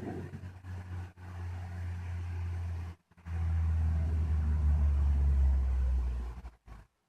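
A low, steady rumble that cuts out briefly about a second in and again about three seconds in, then fades away near the end.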